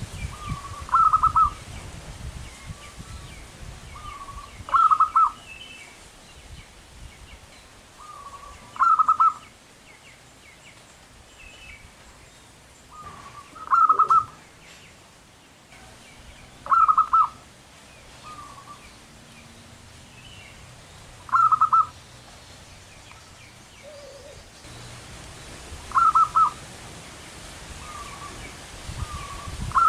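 Zebra dove (perkutut) singing: each phrase is a soft lead note followed by a loud, quick trill of coos, repeated about every four seconds, eight times.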